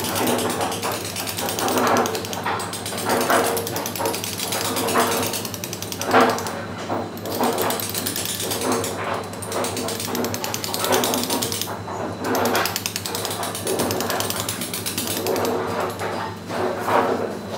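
Carver's dummy mallet tapping a hand chisel into a sandstone scroll in rapid, steady light blows, over a steady low hum. Louder short sounds come through about once a second.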